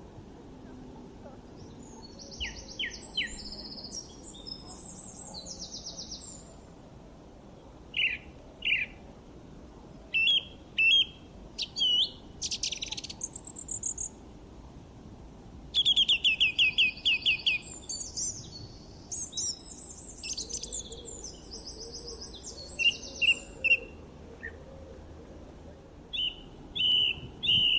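Songbirds singing: bursts of high chirps and quick trills coming in short phrases every second or two, over a faint steady background hiss.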